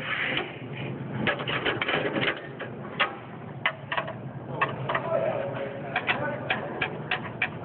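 Irregular sharp metallic clicks, some in quick runs, as a wrench is worked on the oil pan drain plug.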